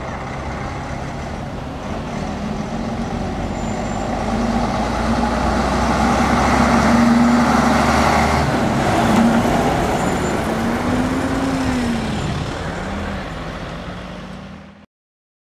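A vintage truck driving past: its engine grows louder as it approaches, is loudest about seven to nine seconds in, then fades as it moves away, with a brief rise and fall in engine pitch. The sound cuts off abruptly near the end.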